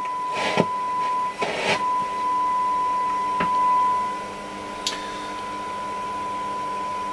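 Signal generator's steady 1 kHz test tone coming through the Hacker Hunter RP38A radio's loudspeaker as its FM tuning is aligned. Two brief bursts of hiss come in the first two seconds, and the tone swells and drops back a little about four seconds in.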